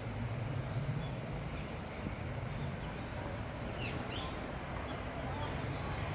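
Outdoor ambience: a steady low rumble with a few short high chirps, two of them close together about two thirds of the way through.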